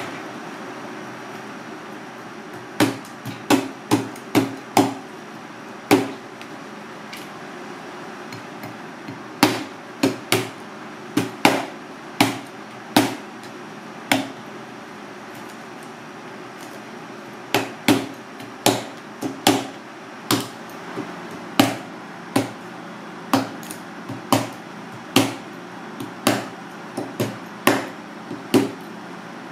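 Kitchen knife chopping down onto a plastic cutting board while cutting up crocodile fish, with its spiny fins and skin. Many sharp knocks come in irregular bursts with a few short pauses, over a steady background hum.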